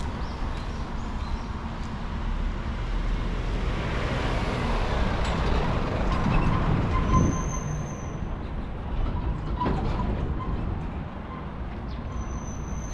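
A road vehicle passing close by: its tyre and engine noise swells over several seconds, peaks about six to seven seconds in, then fades away.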